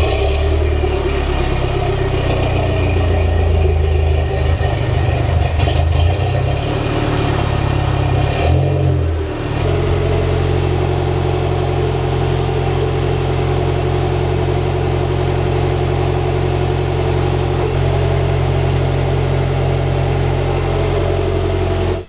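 Toyota MR2's turbocharged 3S-GTE four-cylinder idling steadily as it warms up, with the distributor set roughly to a middle position and the ECU held in diagnostic mode; it sounds smooth. Its note shifts briefly about nine seconds in, then holds even.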